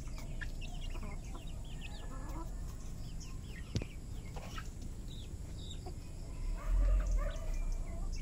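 Rhode Island Red hens clucking with many short, repeated calls as they forage. A single sharp click about four seconds in, and a low rumble near the end.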